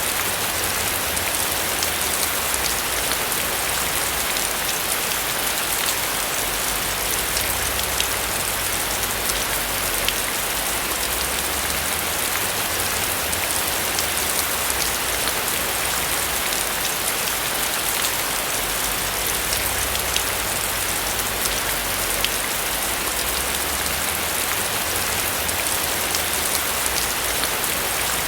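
Steady rain falling on a roof, an even hiss with many separate drops ticking on it.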